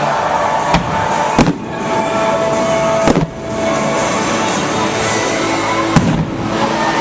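Fireworks going off, about four sharp bangs, over music playing throughout.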